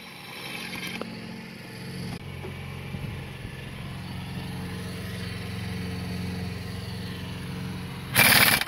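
A steady low mechanical hum, then near the end a short, loud burst of a heavy impact wrench hammering on a tight cylinder head bolt of a Detroit DD15 diesel engine to break it loose.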